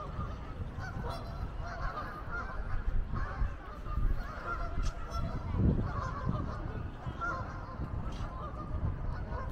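A flock of geese honking repeatedly from the river, many short calls overlapping, over a steady low rumble.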